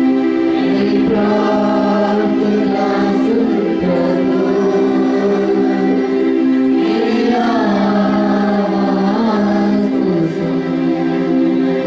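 A group of voices singing a Hindi Christian worship song, the melody rising and falling over steady held chords.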